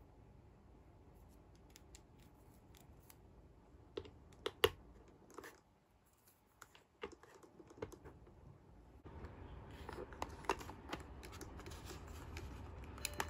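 Small hard plastic toy pieces clicking and tapping as lollipop sticks are handled and pushed into the holes of a toy candy wagon's counter: irregular light clicks, the loudest few about four to five seconds in.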